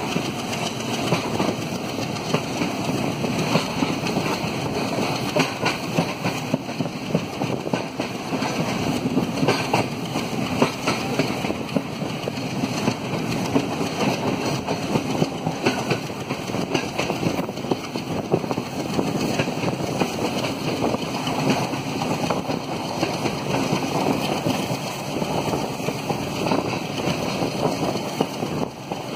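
Indian Railways passenger train running along the track, heard from onboard at an open coach window: a steady rumble and rattle of wheels on rail with frequent clicks, under the working engine of the WDM-3D diesel locomotive hauling it.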